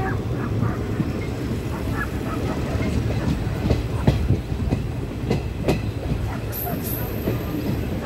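Passenger train running along the track, heard from on board at an open window: a steady low rumble of wheels on rail, with several sharp clacks over the rail joints through the middle and a brief thin high tone about two-thirds of the way through.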